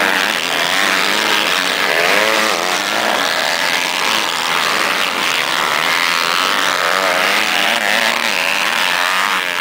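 Several motocross dirt bike engines racing at once, revving up and down in overlapping rising and falling buzzes.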